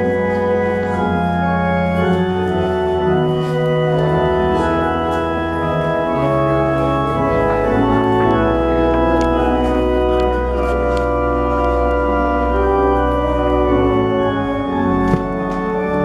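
Organ playing slow, sustained chords, the notes changing every second or two over long, deep held bass notes. Faint shuffling clicks and a brief knock near the end sit under the music.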